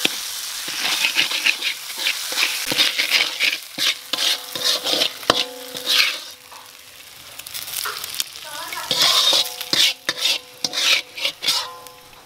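Oil sizzling hard in a metal wok as a metal spatula stirs seasonings, with many sharp clicks and scrapes of the spatula against the pan. The sizzle dips about halfway through, then picks up again.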